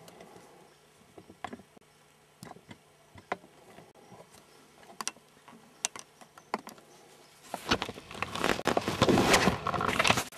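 Scattered small clicks and ticks, then for the last two and a half seconds a loud, dense rustling and handling noise as the camera is moved about inside the hunting blind.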